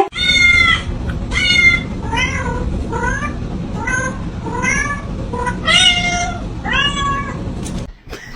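Domestic cat meowing repeatedly, about eight short calls roughly a second apart, several rising in pitch, over a steady low rumble that stops near the end.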